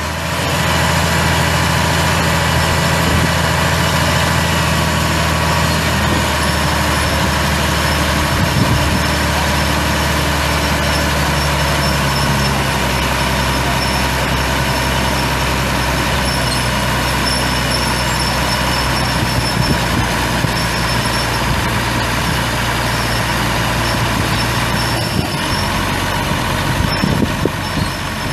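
Cummins ISC 8.3-litre inline-six turbo diesel of a 1997 Ford LT8000 dump truck idling steadily.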